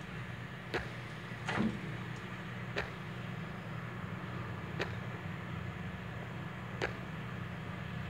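Quiet background: a low steady hum, with faint ticks about every two seconds.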